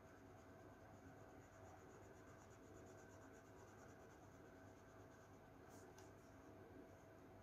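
Faint strokes of colouring on paper, a soft repeated scratching, over a steady low hum, with two light clicks about six seconds in.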